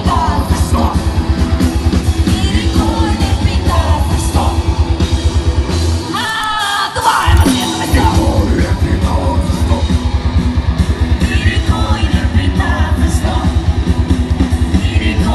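Live rock band with a female singer, electric guitars, bass and drums playing a heavy, fast song through the stage speakers. About six seconds in, the low end drops out for a couple of seconds under the singing, then the full band comes back in.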